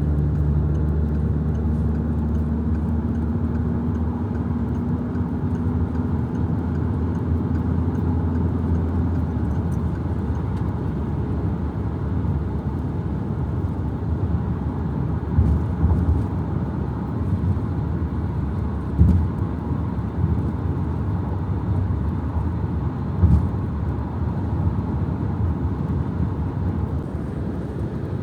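Inside a car cruising on the highway: a steady low rumble of tyre and engine noise. A steady engine hum fades out after about ten seconds, and three short thumps come in the second half.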